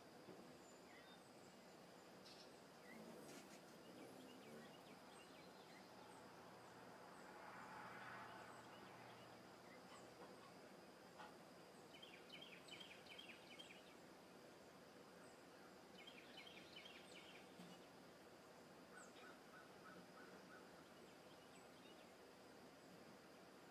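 Faint outdoor ambience: scattered short bird calls and two rapid trains of high chips, over a steady high tone and a soft swell of noise about eight seconds in.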